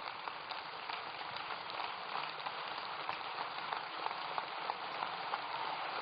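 Large convention-hall crowd applauding, many hands clapping steadily.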